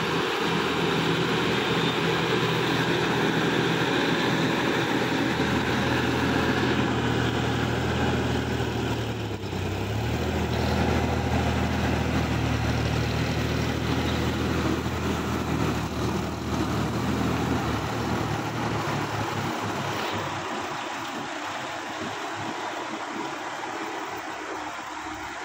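Sonalika DI 50 tractor's diesel engine working steadily under load as its rotavator churns through a flooded paddy field. The engine note dips briefly about nine seconds in, then recovers, and grows fainter over the last few seconds.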